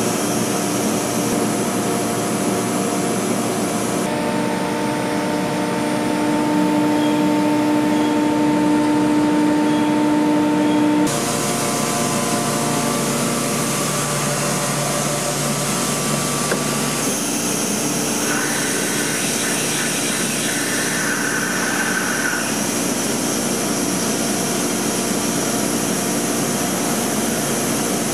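MultiCam 3000-series CNC router running: a steady machine drone with several steady whining tones, which shift abruptly about 4 and 11 seconds in.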